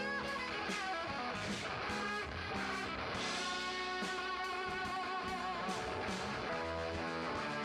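Live band music led by electric guitar, with drums and bass underneath and some held, wavering guitar notes.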